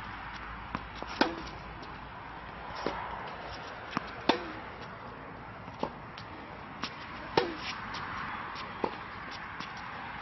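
Tennis rally on an outdoor hard court: tennis balls struck by rackets and bouncing on the court, a string of sharp pops. The loudest pops come about every three seconds, with fainter hits and bounces between them.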